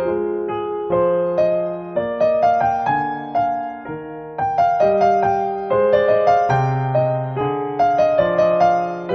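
Background piano music: a melody of struck notes over held low notes and chords.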